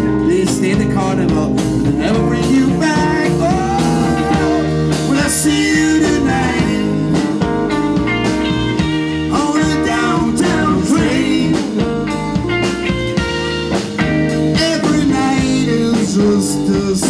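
Live rock band playing: electric guitar, keyboards and drums with a steady beat, and bending melodic lines over them.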